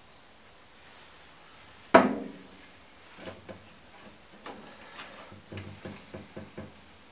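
Hands working a boiler circuit board and its plastic wiring connectors: one sharp knock about two seconds in, then a run of small clicks and taps.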